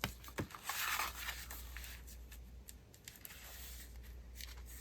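Paper being handled, a soft rustle in the first second after two light taps, then faint scattered ticks over a low steady hum.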